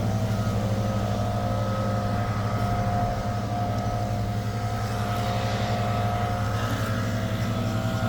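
Engine running steadily at a constant speed, an even mechanical hum with no change in pitch.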